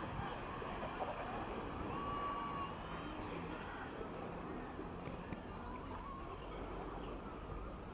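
Seaside ambience: a steady low rush with faint, short, high bird chirps every couple of seconds and a brief held call about two seconds in.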